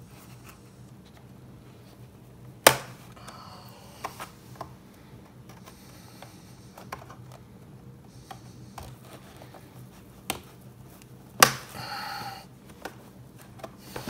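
Plastic retaining clips of a laptop's aluminium bottom cover clicking as the cover is pried up with a plastic pry tool and fingers: two sharp snaps several seconds apart, with lighter clicks between.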